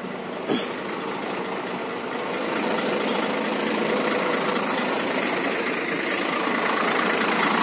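Hino 500 truck's six-cylinder diesel engine idling steadily at about 500 rpm, getting gradually louder, with a single sharp knock about half a second in. The engine is left running to keep the air tanks charged for bleeding the clutch booster.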